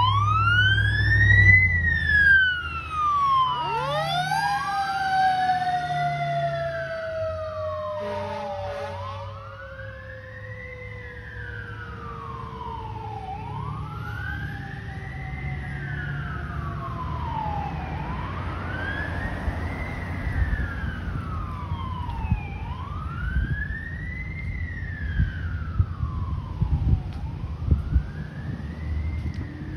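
Fire engine pulling out on a call with its siren wailing, rising and falling about every four to five seconds, over the low rumble of its diesel engine. A second siren spins up quickly about four seconds in and then slowly winds down. There is a short horn blast about nine seconds in, and the sound grows fainter as the truck drives off.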